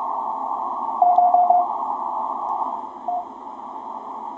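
Ten-Tec Paragon 585 receiver audio: band hiss, squeezed into a narrow band by the passband tuning, with a Morse code signal coming through as short steady beeps about a second in and again briefly near three seconds. The hiss drops a little past the middle as the passband tuning cuts the noise.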